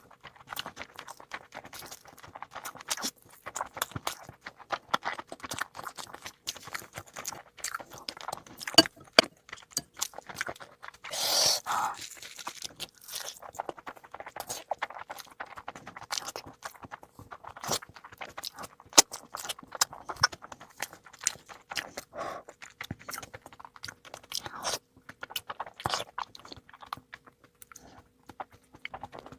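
Close-miked eating: chewing and crunching of food with many sharp, wet mouth clicks, and one longer, louder burst about eleven seconds in.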